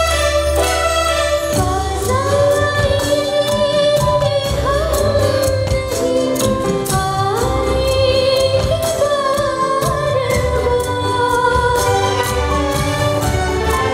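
Live band music with a woman singing a slow Hindi film song melody over keyboard and rhythm backing. The voice comes in about two seconds in, after a short instrumental passage.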